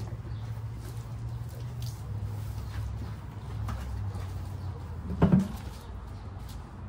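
Faint handling sounds of a large pot being washed by hand, then a loud thud with a short ring about five seconds in as the pot is set down upright on concrete. A steady low hum runs underneath.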